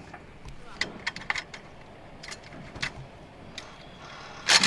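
Scattered light clicks and knocks, like objects being handled, with a louder clatter near the end.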